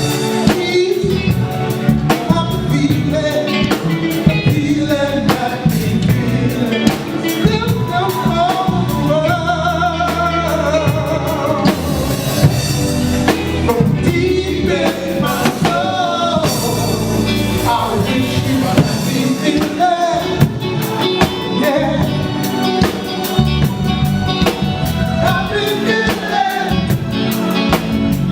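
A live band playing with keyboards, guitar and drums, and a singer holding long, wavering sung notes over it in a gospel-tinged soul style.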